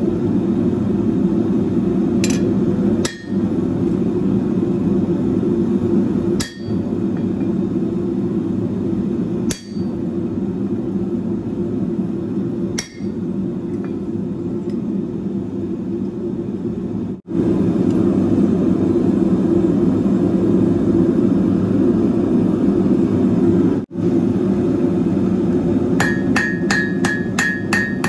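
Single hammer blows on a chisel, several seconds apart, cutting the barbs into a hot steel feather on the anvil, over a steady low rushing from the propane forge burner. Near the end, a quick run of about eight ringing ball-peen hammer blows on the hot steel against the anvil, drawing the feather's end to a point.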